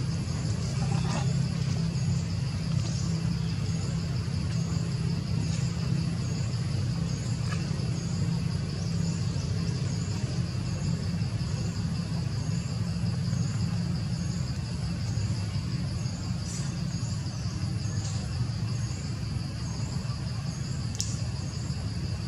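Outdoor ambience of a steady high insect drone with a short chirp repeating about once a second, over a steady low rumble. One faint tick comes near the end.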